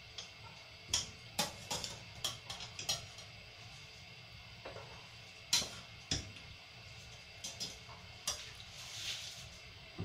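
Daikon radish rounds being moved about in a pot of oden broth: a string of light clicks and knocks against the pot, in clusters, with a softer rustle near the end.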